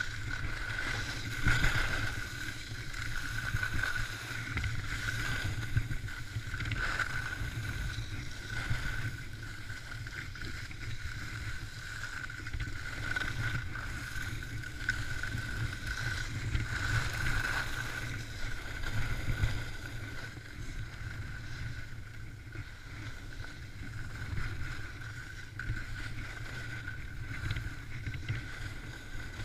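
Elan alpine skis sliding and scraping over packed, hard snow during a run downhill, with steady wind rush on the microphone and a steady high hum underneath.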